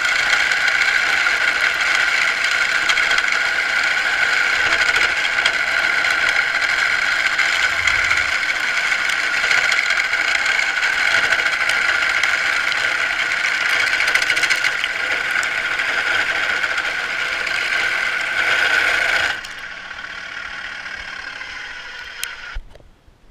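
Carbide turning tool cutting a spinning wooden spindle on a Craftsman wood lathe: a loud, steady scraping cut over the lathe's running. About nineteen seconds in the tool comes off the wood and only the quieter lathe running is left, then a sharp click near the end after which the sound drops much lower.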